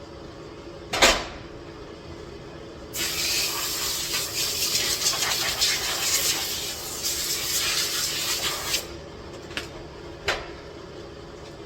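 A sharp click, then a spraying hiss that lasts about six seconds and stops, followed by two light clicks.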